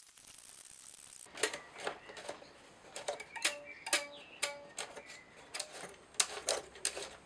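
Irregular wooden clicks and taps from hands turning the tuning pegs of a UGears plywood hurdy-gurdy kit while tensioning its strings, with a few short ringing tones about three to four and a half seconds in.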